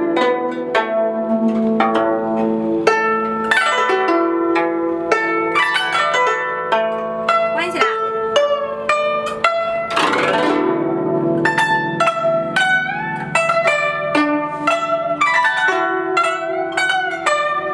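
Guzheng being played: a continuous run of plucked notes that ring and die away, some bending in pitch as the strings are pressed. About ten seconds in comes a sweeping glissando across the strings.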